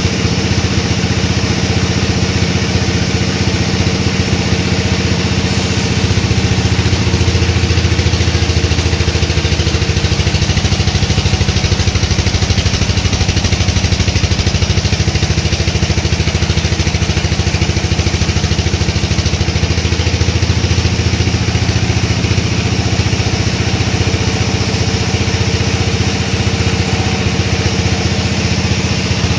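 Sawmill machinery running steadily with a constant engine-like hum. From about six seconds in to about twenty seconds the low hum grows fuller and louder, then eases back.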